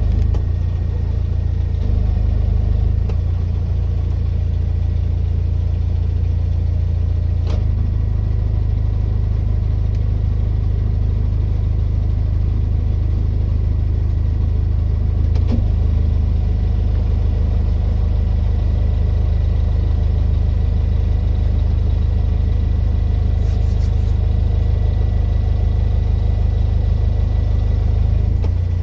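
A narrowboat's engine running steadily at low revs, a deep, even throb as the boat moves slowly along.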